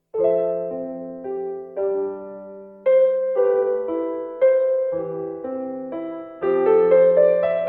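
Slow, gentle piano melody played on an electronic keyboard (Casio WK-110), sustained chords under a simple tune with a new chord struck every second or two. It starts a new phrase after a brief pause.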